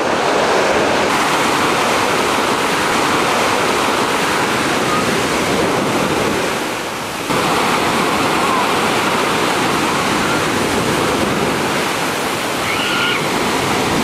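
Sea surf: waves washing and breaking in a continuous rush of water. The sound dips briefly about seven seconds in, then comes back abruptly.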